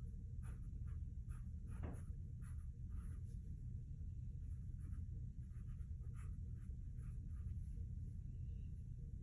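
Irregular scratching and light knocking from inside a tiled wall, a few to several per second, over a steady low hum.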